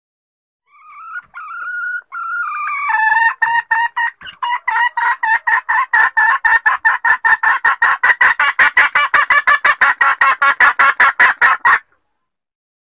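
Junglefowl hen calling: a few rising, drawn-out notes, then a long fast run of short clipped notes, about five a second, that cuts off suddenly.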